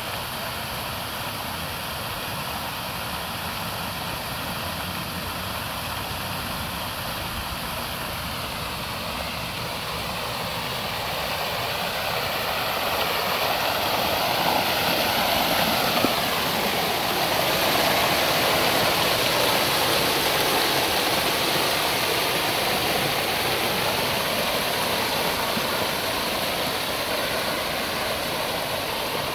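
Fountain's tall central jet and ring of angled jets splashing into the basin: a steady rush of falling water. It grows louder for a while in the middle, as the microphone comes close to the jets.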